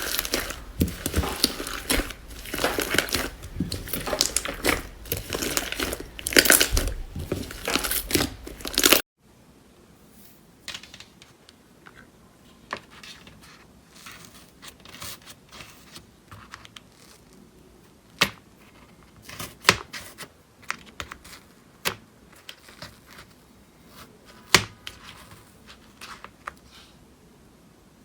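Slime being worked by hand: dense crackling and tearing for about nine seconds, then after a sudden cut, quiet with scattered small pops and clicks.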